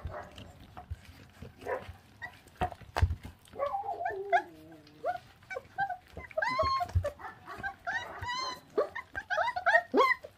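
24-day-old puppies tearing and chewing at raw meat on the bone: scattered sharp clicks of chewing, then from about four seconds in, wavering high whines and whimpers that come thicker toward the end.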